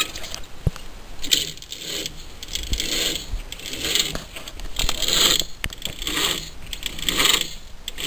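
Metallic clicking and rattling from the exposed engine of an old open utility vehicle that won't move, coming in irregular short bursts about once a second.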